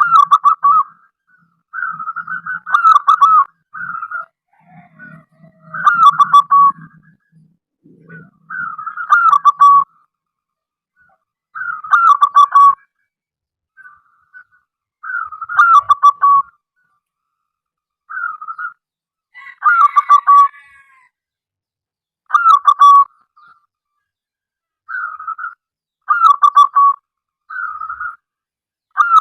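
Zebra dove (perkutut) cooing, repeating its short rolling phrase over and over, every two to three seconds.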